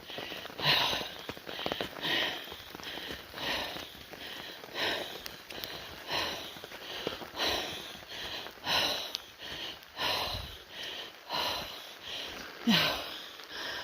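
A person breathing hard and quickly, a little more than one breath a second, winded from climbing uphill.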